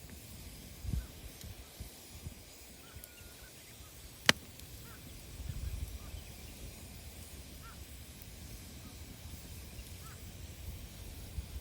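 Wood fire burning with a low rumble and small crackles, and one sharp loud pop about four seconds in. Faint short squeaks come every couple of seconds.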